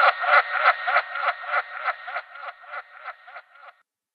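A man laughing, a hearty run of 'ha-ha-ha' pulses at about three a second, with a thin, tinny sound. It fades away steadily and stops a little before the end.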